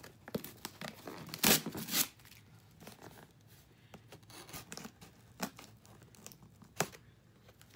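Packing tape on a cardboard shipping box being cut with scissors and torn open, with two loud rips close together about a second and a half in. A few sharp taps and scrapes on the cardboard follow.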